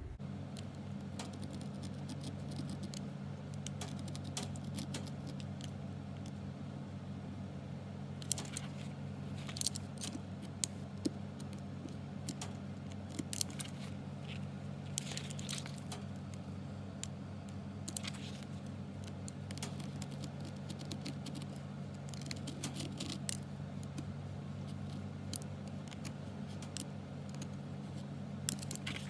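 Snap-off utility knife cutting slits into suede leather on a cutting mat: scattered scratchy slices and small clicks of the blade, over a steady low hum.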